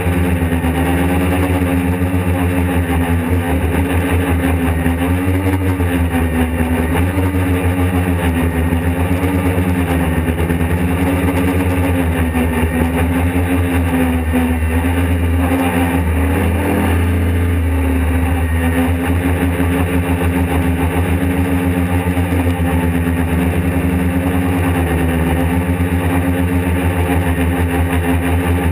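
A quadcopter's electric motors and propellers running steadily in flight, a loud multi-toned hum whose pitch rises and falls in slow waves as the throttle is adjusted.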